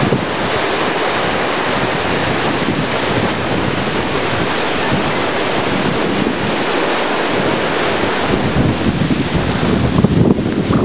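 Heavy hurricane surf rushing and washing up a flooded beach in a steady loud hiss, with wind buffeting the microphone. The wind buffeting grows stronger and more gusty near the end.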